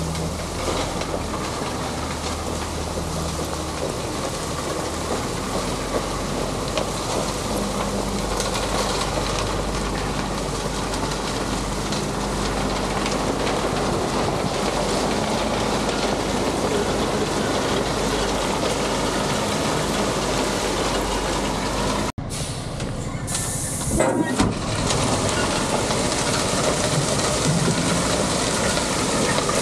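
Heavy diesel machinery running steadily, its low engine hum under a loud rushing noise. There is a sudden brief gap about two-thirds of the way through, followed soon after by a short loud clatter.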